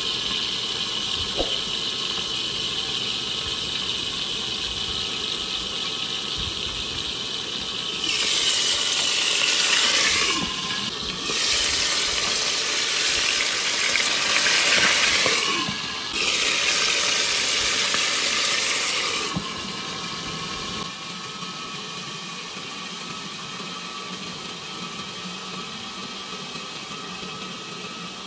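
Tuna steaks frying in oil in a covered pan, a steady sizzle. In the middle it grows much louder and brighter in three stretches of a few seconds each, with short dips between, as the lid is lifted off the pan, then settles back to a quieter, muffled sizzle under the lid.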